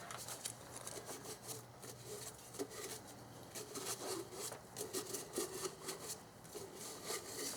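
Faint, irregular rubbing and scuffing of a shop wipe being worked over the engine's intake manifold surfaces to clean off dirt and oil residue before the gasket goes on.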